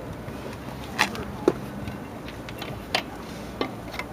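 Lug wrench working the wheel's lug nuts as they are tightened: about four sharp, irregular metal clicks and knocks.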